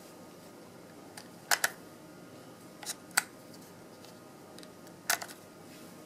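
Sharp plastic clicks from the Contour GPS 1400 camera's battery latch and battery compartment being worked by hand, a few snaps with the loudest about one and a half, three and five seconds in.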